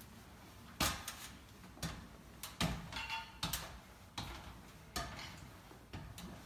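Irregular clicks and light knocks of small hard parts and packaging being handled, about a dozen sharp ticks spread unevenly.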